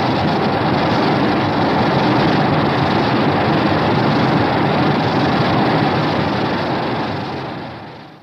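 A synthetic monster sound effect: a loud, steady rumbling rush with no clear pitch that fades out near the end.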